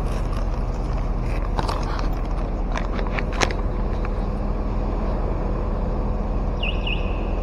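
Steady low rumble of road traffic, with a few sharp clicks of handling between about one and a half and three and a half seconds in, and a short high chirp near the end.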